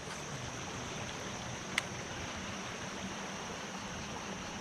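Steady rush of flowing river water, with one sharp click about two seconds in.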